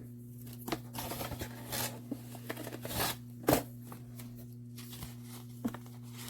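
Paper leaflets and a user manual rustling and crinkling as they are handled and pulled from a product box, in short scattered crackles with one sharper rustle about three and a half seconds in. A steady low hum runs underneath.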